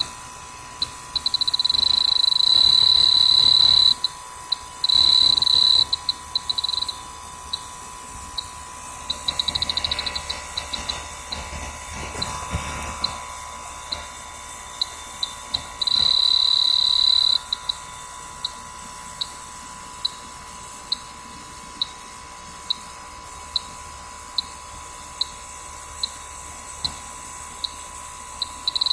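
A handheld electronic detector beeping: short high pips about once a second that speed up into rapid chirps and, twice, hold as long steady tones.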